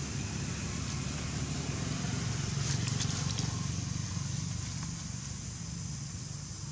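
A steady low rumble, with a few faint crackles of dry leaves about three seconds in.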